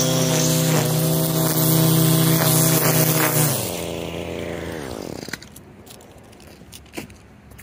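Gas string trimmer engine running at high revs, then throttle released about three and a half seconds in, the engine note falling and dying away. A couple of light knocks follow.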